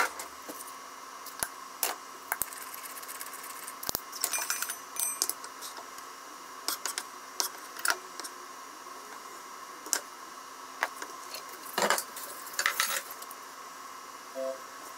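Metal measuring spoon clinking and tapping against a small stainless steel bowl while sauce ingredients are added, and a kitchen knife scraping chopped green onion off a wooden cutting board. Scattered light clinks and taps, with a longer scrape later on.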